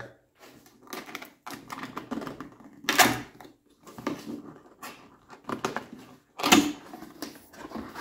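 A cardboard box being handled and opened by hand: irregular scrapes, rustles and light clicks of cardboard sliding and flaps moving, with two louder scrapes about three and a half seconds apart.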